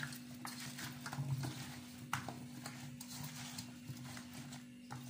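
Scattered light clicks and taps at irregular intervals, over a steady low hum.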